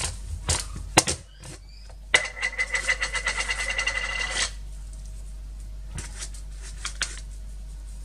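A plastic spice container being handled: a few sharp knocks, then a rapid rattling run of clicks for about two seconds, then only a few faint taps.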